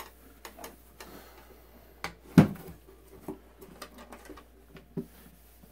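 Handling noise from wiping a Bakelite radio cabinet with a cloth rag: light scattered clicks and knocks, with one louder thump about two and a half seconds in.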